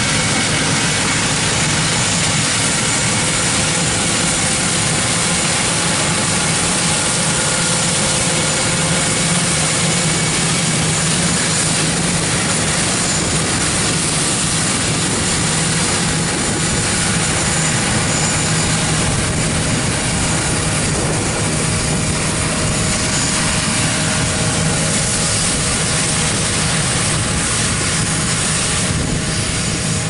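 Diesel engines of heavy farm machinery running steadily: a Versatile 400 four-wheel-drive tractor pulling a grain cart, with a John Deere S660 combine working alongside in a soybean harvest.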